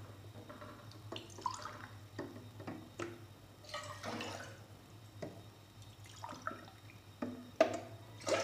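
Water poured from a glass cup into an aluminium pot already holding water, splashing and gurgling in a string of short, uneven pours with brief pauses between them.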